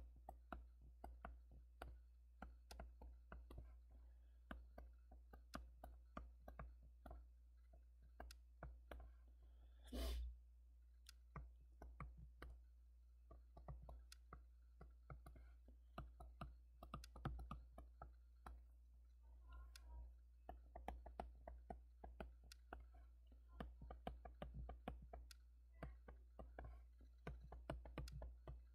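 Faint, quick clicks and taps of a stylus on a tablet screen as formulas are handwritten, over a steady low hum. One louder short burst of noise about ten seconds in.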